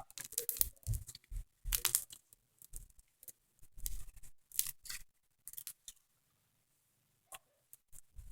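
Clear flowing slime being handled and stretched: a run of short sticky crackles, pops and squelches, busy for the first six seconds or so, then a few isolated clicks near the end.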